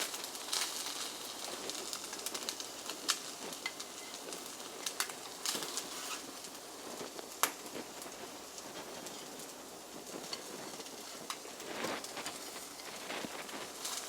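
Hot oil crackling and sizzling in a frying pan, with scattered sharp pops and clicks.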